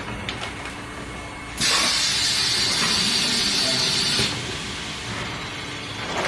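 Plastic tray vacuum forming machine cycling. A loud air hiss starts suddenly about a second and a half in and lasts nearly three seconds, then drops to a softer steady hiss, while the heated plastic sheet is formed over the tray mould. Light machine knocks come near the start and near the end.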